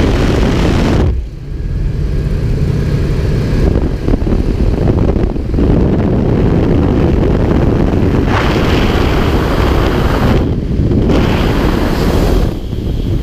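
Loud wind rush and propeller-aircraft engine noise at the open door of a jump plane, buffeting the microphone, with brief lulls about a second in and twice near the end.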